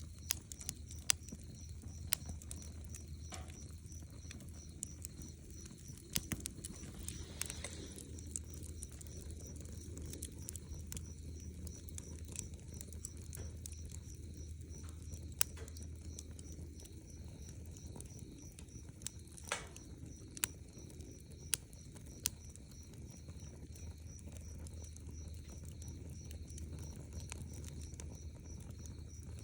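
Wood campfire crackling: irregular sharp pops and snaps, a few at a time and then several seconds apart, over a low steady rumble.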